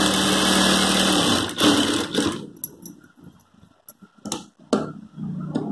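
Industrial sewing machine running steadily as it stitches cloth, stopping about two and a half seconds in. A few light clicks follow.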